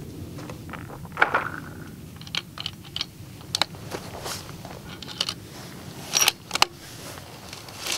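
Scattered small metallic clicks and clacks of a .270 WSM bolt-action rifle and its brass cartridges being handled during loading, with a louder pair of clacks about six seconds in.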